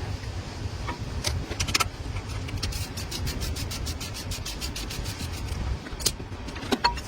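Sharp metal clicks and knocks from work on a truck's disc brake, with a run of rapid, even clicks, about nine a second, lasting roughly three seconds in the middle. A steady low rumble runs underneath.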